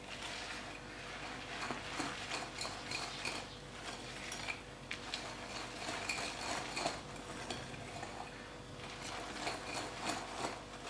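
Wire whisk stirring crushed Oreo cookies into whipped cream in a glass bowl: soft irregular scraping with light clicks of the metal tines against the glass.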